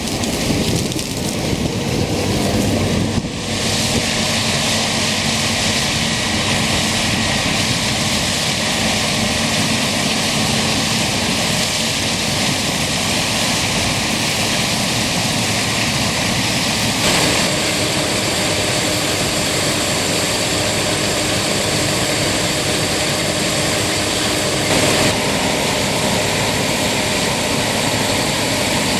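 Claas Lexion combine harvester running under load while harvesting corn: a steady, dense mechanical roar of engine and threshing machinery. The sound changes abruptly about three seconds in, again around the middle, and near the end.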